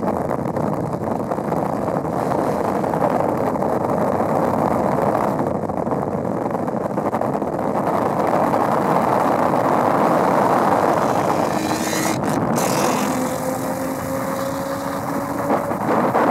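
Straight-piped 2005 Nissan 350Z's 3.5-litre V6, piped straight from the stock manifolds, running at a steady highway cruise over heavy road and wind noise. In the last few seconds its pitch climbs slowly as the car accelerates away.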